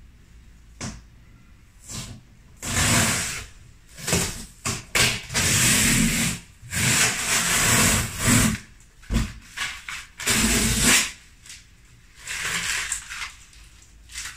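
A cardboard box and its packaging being torn and pulled open, in a run of loud, irregular noisy bursts of a second or two each.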